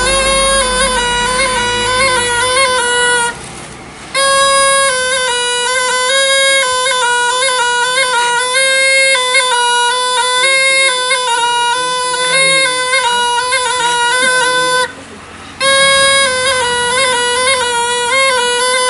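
Snake charmer's reed pipe (pungi) playing a nasal, buzzing melody that stays close to one pitch. The pipe drops out briefly twice, a few seconds in and again after about fifteen seconds.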